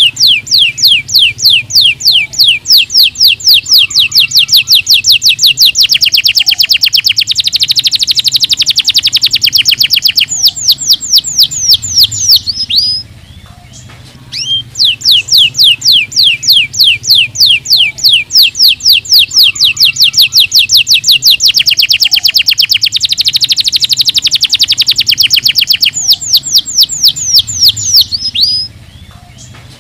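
Domestic canary singing a long, loud song of rapid repeated down-sweeping notes and fast trills. It breaks off about thirteen seconds in and then repeats the same song, over a faint low hum.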